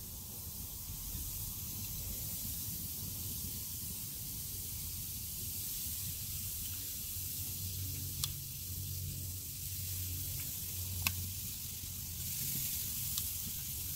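Marinated chicken gizzards sizzling on a hot charcoal grill grate: a steady hiss. Two or three sharp metal clicks in the second half as the tongs strike the grate.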